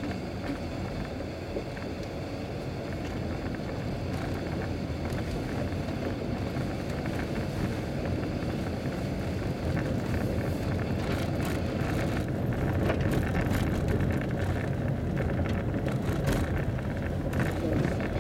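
Car driving on an unpaved gravel road, heard from inside the cabin: a steady rumble of tyres and engine, with gravel crackling and ticking against the car. It grows louder and the stone clicks come thicker about two-thirds of the way through.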